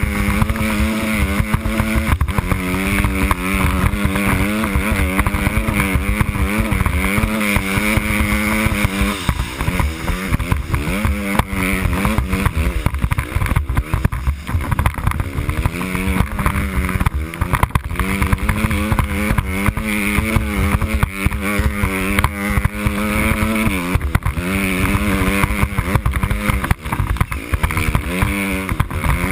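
Dirt bike engine running under load through snow. The revs hold steady for stretches and drop and pick back up several times as the rider works the throttle.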